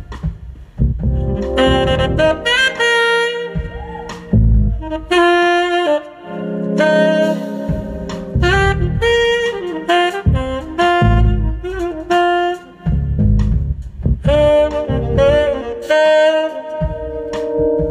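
Tenor saxophone playing a live jazz solo, quick runs of notes broken by longer held tones, with the band playing underneath.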